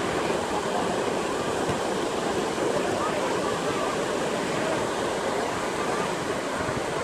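Low surf breaking and washing over a shallow sandy beach, a steady rushing wash of waves. Faint distant voices of bathers rise here and there over it.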